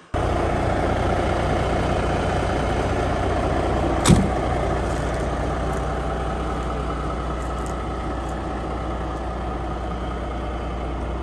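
Peterbilt 389 semi truck's diesel engine idling steadily, with a single sharp knock about four seconds in.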